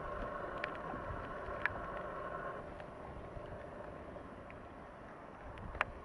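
Steady rain falling, with scattered faint drip ticks and one sharp knock near the end.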